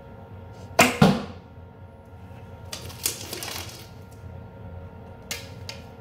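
A traditional bow with fur string silencers shot from full draw: a sharp crack as the string is released, and a quarter second later the thud of the arrow hitting the target. About three seconds in there is a rustle, then two light clicks, as another arrow is drawn from the back quiver and handled.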